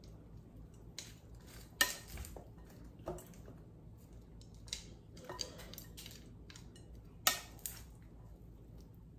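A serving utensil clinking against a large glass bowl as pasta salad is tossed, with soft stirring of the food between irregular sharp clinks, the loudest about two seconds in and again about seven seconds in.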